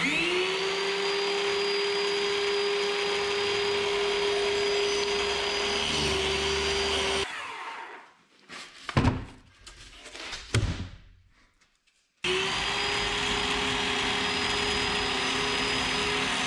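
Handheld cordless power tool cutting foam board: the motor spins up to a steady whine and runs, then is switched off about seven seconds in and winds down with a falling whine and a few knocks. It starts again abruptly about twelve seconds in and runs steadily.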